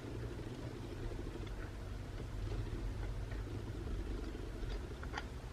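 Low steady background hum with faint small clicks and taps of a smartphone's motherboard and parts being handled and seated in the frame, one sharper click about five seconds in.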